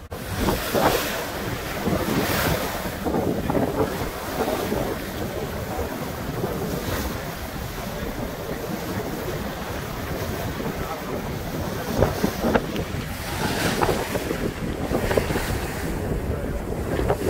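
Bow wave of a sailing yacht under way rushing and splashing along the hull, swelling and easing in surges, with wind buffeting the microphone.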